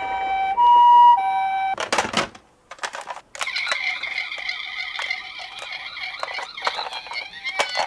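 Toy ambulance minicar's electronic hi-lo siren, alternating between two tones about every half second, that stops with a couple of clicks about two seconds in. After a brief pause comes a steady rattling roll with many small clicks as the minicar runs down the slope.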